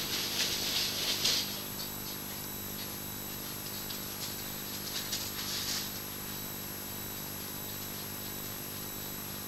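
Badgers fighting: the last harsh screeching bursts trail off over the first second or so, with a few fainter scuffling squeals between about four and six seconds in. Underneath runs a steady electrical hum and hiss.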